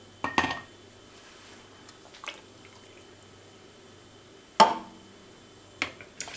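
A metal soup ladle clinking and knocking against a stainless steel stockpot and a plastic funnel while hot vegetable stock is ladled into glass jars, with one loud ringing knock about four and a half seconds in. Near the end comes a short pour of liquid through the funnel.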